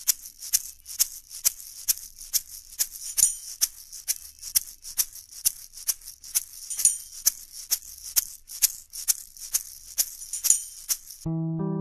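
Intro music: a shaker or maraca playing an even rhythm of about three hits a second, with an acoustic guitar coming in near the end.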